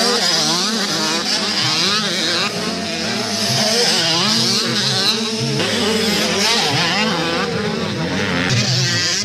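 Several 85cc two-stroke motocross bikes racing on a dirt track, their engines revving up and down at different pitches that overlap.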